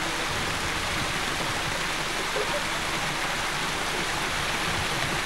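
Steady rush of stream water tumbling over a small cascade.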